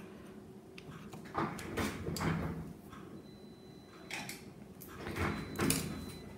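Small plastic nail-gel pots handled on a paper-covered tabletop: two spells of scraping and rustling, about a second and a half in and again about four seconds in.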